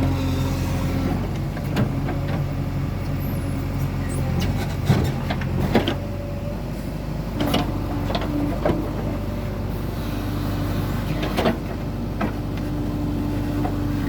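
JCB 3DX backhoe loader's diesel engine running steadily while it works, its pitch shifting a couple of times, with several sharp knocks at irregular intervals.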